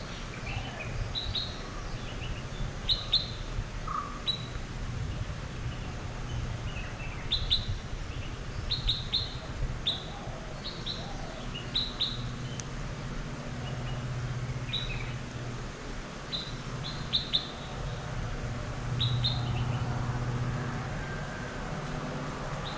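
Birds chirping in trackside trees: short high chirps, often two or three in quick succession, repeating every second or so, over a faint low steady hum.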